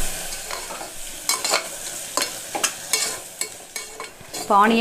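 Sliced onions sizzling in oil and ghee in a pressure cooker, sautéing until soft, while a metal spatula stirs them, its edge clicking and scraping against the pot now and then.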